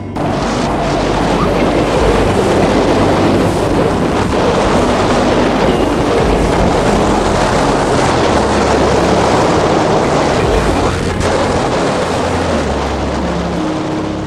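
Strong wind blowing over the microphone and waves rushing and splashing along the hull of a sailboat sailing upwind in rough seas.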